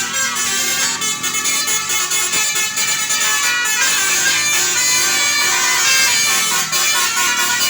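Tour bus's telolet basuri musical air horn playing a tune of many notes without a break.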